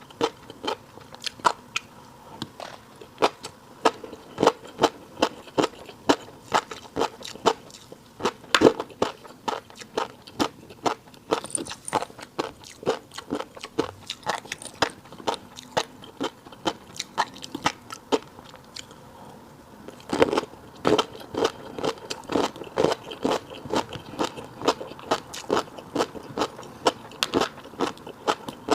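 Close-miked eating of a fish roe and seafood rice bowl: a rapid run of sharp wet clicks and smacks of chewing, several a second, with a short lull a little past the middle.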